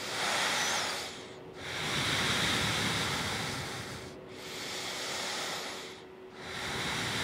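A person breathing slowly and deeply, audible in and out breaths coming as four rushing swells of about two seconds each, each fading before the next.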